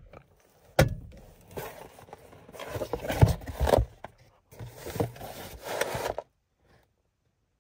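Cardboard pizza box handled and opened: a sharp click about a second in, then scraping and rustling of cardboard, stopping suddenly about six seconds in.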